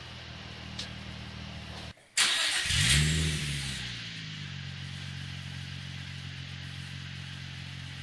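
2003 Nissan 350Z's 3.5-litre V6 idling through its exhaust, with one quick throttle blip about two seconds in that rises and falls back to idle within about a second and a half, just after a brief gap in the sound.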